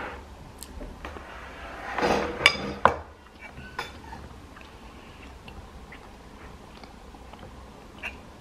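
A metal spoon scraping and clinking against a ceramic plate: a scraping stretch about two seconds in with two sharp clinks, then a few single light clinks.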